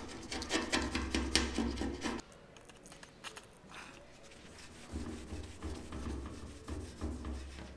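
A shop rag scrubbing and wiping the side of a handmade aluminum fuel tank. It opens with a quick run of rubbing strokes for about two seconds, goes quieter, then slower wiping strokes start about five seconds in. The tank is being cleaned around its cracked weld before welding.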